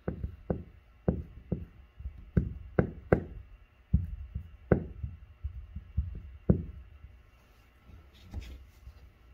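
Hot drill-bit shank knocking and tapping against a jon boat's plastic hull as it is worked into a hole to melt it shut. The taps come irregularly, about two a second, and stop about two-thirds of the way through.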